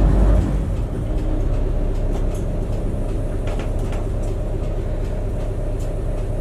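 Bus engine idling with a steady low rumble, heard from inside the cabin.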